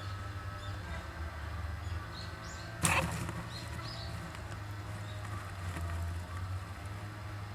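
Young Japanese giant flying squirrels in the nest box giving faint, short, high-pitched chirps, with one sudden sharp noisy burst about three seconds in, over a steady low hum.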